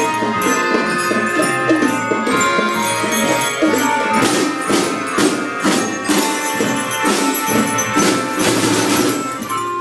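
Children's marching band playing a tune: melodicas hold the melody in sustained notes over steady drum and tambourine beats.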